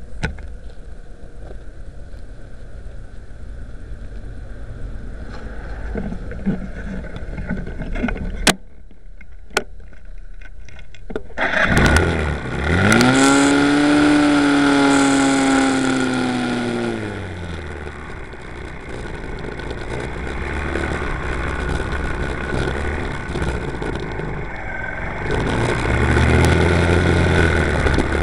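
Suzuki RV125 VanVan's single-cylinder four-stroke engine idling, with two sharp clicks about a third of the way in. Then the engine revs up in a rising, held and falling note as the bike pulls away. It settles into steady running, and louder riding noise builds near the end.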